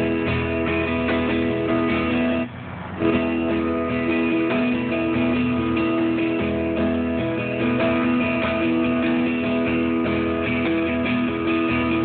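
Guitar chords strummed and left ringing through the line-array PA during a sound check, with a short break about two and a half seconds in.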